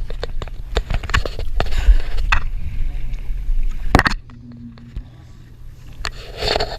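Water sloshing and splashing around a paddleboard on the sea, with scattered knocks over a low wind rumble. It turns suddenly quieter about four seconds in.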